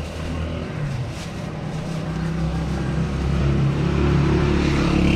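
A motor vehicle engine running close by, a low steady hum that grows louder through the second half.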